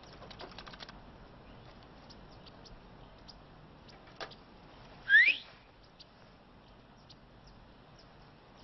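A short, sharp rising whistle, two quick upward sweeps about five seconds in, far louder than anything else. Around it, faint scattered ticks, with a brief rapid clicking in the first second.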